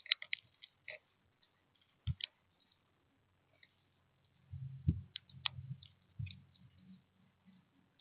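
Small sharp clicks and taps, a few at a time, with two low thuds and a short low rumble near the middle. This fits birds pecking and landing on a feeder.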